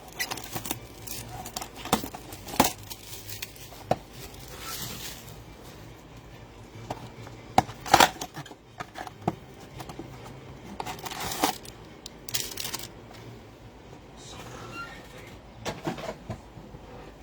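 A cardboard blaster box and foil trading-card packs being torn open and handled: scattered sharp tearing and crinkling, with clicks and taps, loudest about eight seconds in and again about eleven to twelve seconds in.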